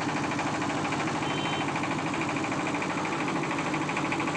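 A boat's engine running steadily with a fast, even beat.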